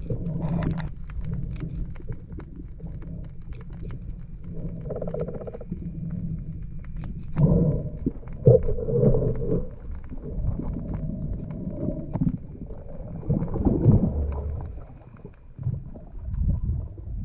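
Muffled underwater sound of a diver swimming, heard through an action camera's waterproof housing: a low rumble of moving water with scattered clicks, and louder swishing surges about eight seconds in and again near fourteen seconds.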